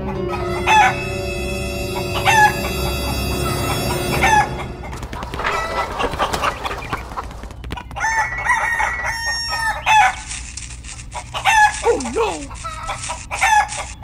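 Rooster crowing and chickens clucking.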